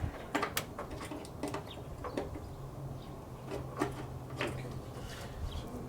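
Scattered light clicks and plastic knocks as hands work a headlight bulb into the back of the headlight housing. A faint low hum comes in about halfway through and stops near the end.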